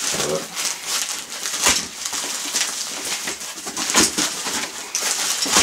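White plastic mailer bag around a large parcel crinkling and rustling as hands grip and shift it, in irregular crackles.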